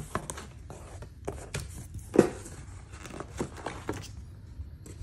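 Cardboard shipping box flaps being pulled open and folded back: a run of short scrapes, rustles and light knocks, the loudest about two seconds in.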